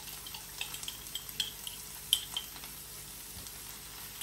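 Broccoli frying in oil in a pan, a steady faint sizzle, with scattered light clicks and scrapes of a wooden spatula scooping red pesto out of a glass jar.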